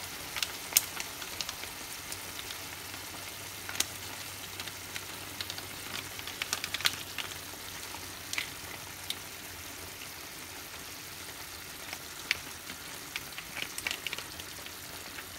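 Diced chicken sizzling in a frying pan as sauce is squeezed onto it: a steady low sizzle with scattered sharp pops and crackles.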